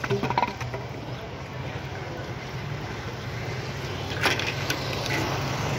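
Motorcycle engine idling steadily, with a few light clicks near the start and a sharp click about four seconds in as the fuel tank cap is handled.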